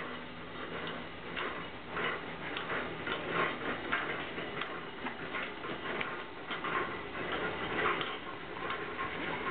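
Homemade trommel turning slowly: a 1/2-inch expanded-metal screen drum in a cut PVC pipe union, driven by a 12 V windshield washer motor and V-belt and rolling on plastic support wheels, with a run of light clicks and rattles, a few a second.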